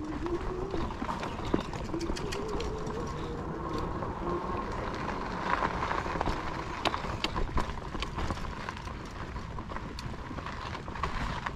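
Electric bike rolling over a rooty dirt trail. A steady rushing noise runs throughout, broken by many scattered knocks and rattles as the bike jolts over roots, with a faint whine from the rear hub motor that rises slowly in pitch a couple of seconds in.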